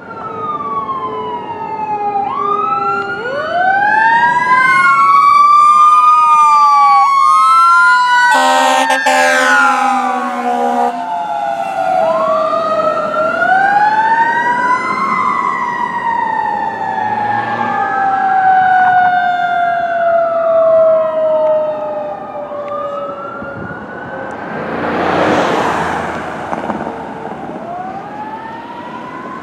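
Fire engine sirens wailing in overlapping rising and falling sweeps, with a long, heavy air horn blast of about three seconds starting around eight seconds in. Later there is a rush of road and engine noise as the truck passes, and near the end a second siren starts its rising sweeps as the battalion chief's SUV follows.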